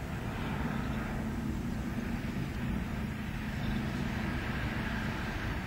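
Steady outdoor background noise with a low, even hum and no distinct event.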